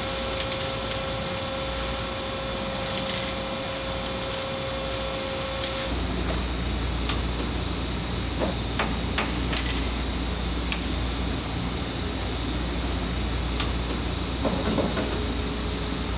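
Factory machinery hums steadily with a held tone, then gives way about six seconds in to a lower rumble. Over the rumble come scattered sharp metallic clanks and taps of steel parts being handled.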